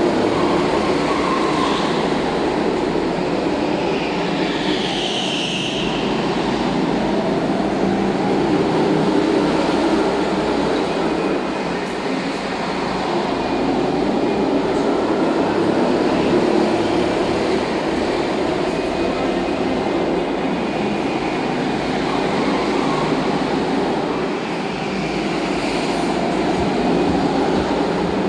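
Several go-karts running laps of an indoor track, a continuous drone that swells and eases as karts pass, with a brief high squeal about five seconds in.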